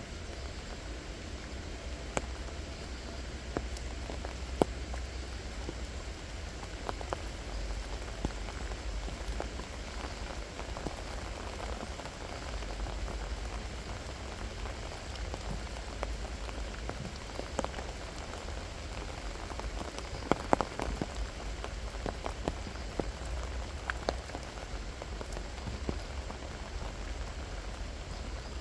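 Steady rain falling, an even patter with scattered sharper drop hits, a quick run of them about twenty seconds in, over a steady low rumble.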